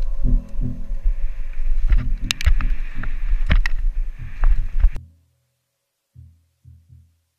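Mountain bike riding fast down dirt singletrack: rushing noise with sharp rattles and knocks from the bike over the rough trail, under repeated deep thuds. The sound cuts off suddenly about five seconds in, leaving only a few faint low thuds.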